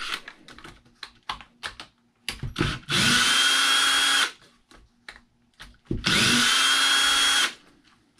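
Cordless power driver backing out two small screws from an RC car chassis: two runs of about a second and a half each, the motor whine rising and then holding steady, with light clicks of handling between them.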